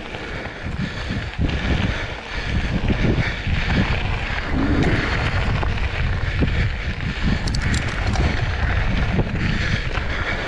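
Wind buffeting the camera microphone as a mountain bike rolls along dry dirt singletrack, with the tyres crunching and small knocks as the bike goes over bumps.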